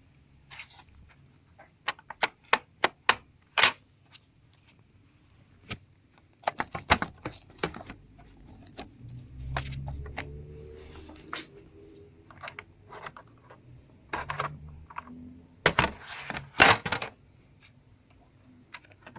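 Plastic clips of a notebook computer's bottom cover snapping and clicking loose as the cover is pried off with a plastic guitar pick, in several clusters of sharp clicks, the loudest near the end, with some dull handling noise in between.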